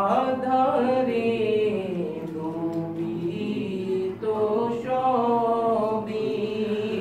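A man singing a naat unaccompanied, in long, drawn-out melodic phrases that echo off the shrine's tiled walls.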